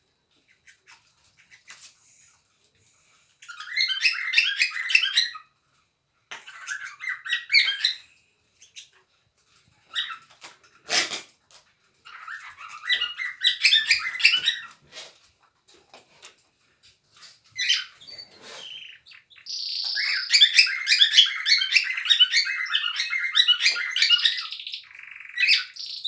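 Cockatiels chattering in fast, scratchy chirps, coming in several bouts with pauses between them; the longest bout is near the end. There is one sharp knock about eleven seconds in.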